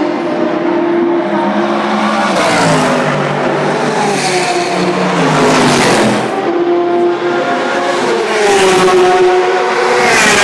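Racing car engines passing at speed one after another, including a Porsche 911 GT3 RSR. The engine note falls as each car goes by, a little after two seconds and again around four to six seconds in. Near the end another car approaches, its pitch rising.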